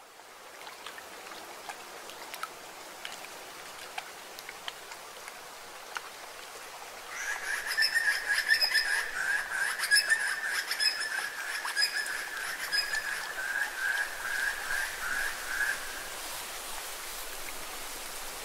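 Lakeside nature ambience: a steady soft water hiss with scattered small ticks. From about seven seconds in, an animal's rapid pulsing trill runs for around nine seconds and then stops.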